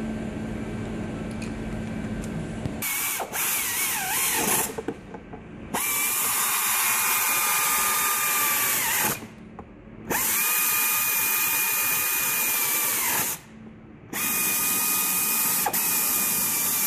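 Air ratchet running in four separate bursts of a few seconds each, a hissing whine that sags in pitch as each burst stops, driving down the ignition coil bolts.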